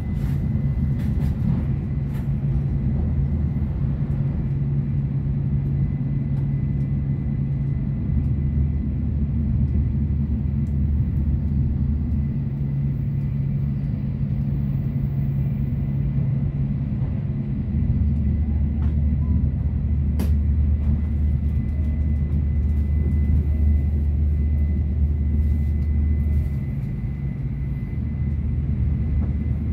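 Sanyo Shinkansen running at speed, heard inside the passenger cabin: a steady low rumble of running noise that swells and eases in long stretches, with a faint steady high tone above it. There is a single faint click about two-thirds of the way through.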